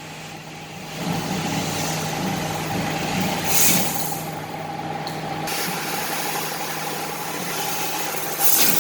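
CNC laser cutting machine running: a steady hum under a hiss, with two short, louder blasts of hiss, one about three and a half seconds in and one near the end.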